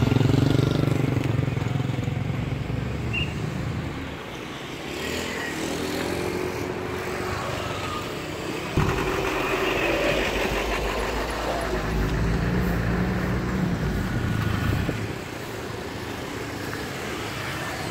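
Road traffic, mostly motorcycles and cars, passing close by with their engines swelling and fading one after another. A louder vehicle comes in suddenly about nine seconds in.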